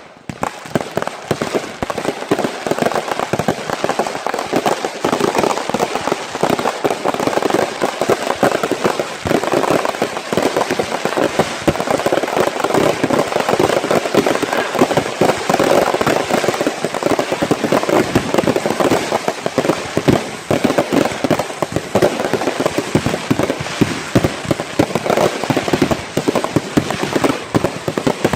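Consumer fireworks going off in a dense, continuous barrage of rapid bangs and crackles that starts abruptly and keeps going without a break.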